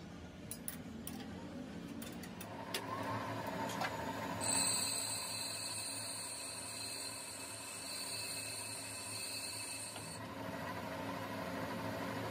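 Metal lathe running with a steady low hum. A few light metallic clicks come in the first few seconds, and a steady high whine joins about four seconds in and cuts off suddenly near ten seconds.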